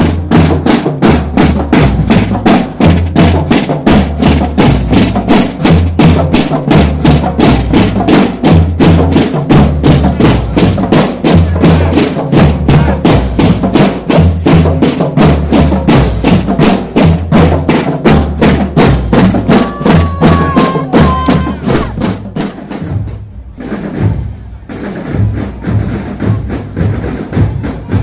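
Marching drum band playing a loud, steady percussion cadence: rapid, evenly spaced snare-type strokes over a repeating pattern of bass drum beats. About 23 seconds in the playing drops away briefly, then carries on more softly.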